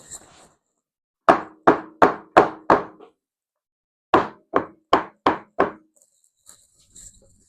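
Two runs of sharp knocks on a hard surface, five and then six, about three a second, each with a short ring.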